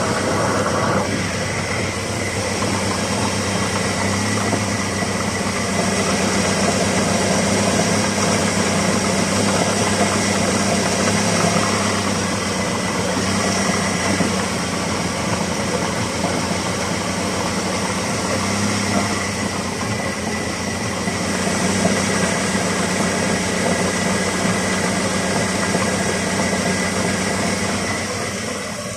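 Ford Mondeo Mk3 running steadily, with the knocking of a failing driveshaft support (intermediate shaft) bearing.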